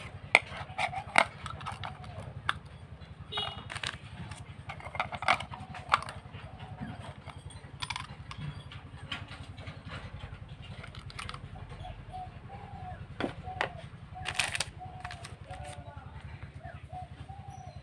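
Scattered clicks and clinks of metal parts being handled as a cutting disc and flange washer are fitted onto a mini angle grinder's spindle, over a steady low hum. The grinder is not running.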